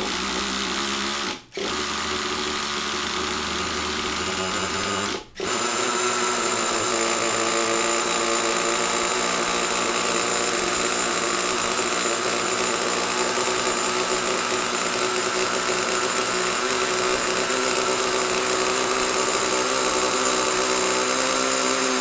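A nitro RC truck engine is turned over by its electric starter in two short bursts. It catches about five seconds in and then runs at a steady idle.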